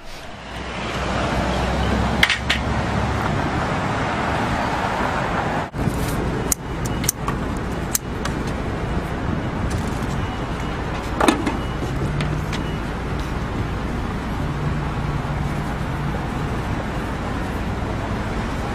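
Road traffic and a vehicle engine running close by, a steady rumbling noise. A few sharp clicks come between about six and eight seconds in, and another at about eleven seconds.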